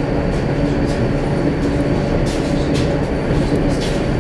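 Suburban electric train (elektrichka) running, heard inside the carriage: a steady rumble of wheels on rail and a low, even hum, with a few sharp clicks in the second half.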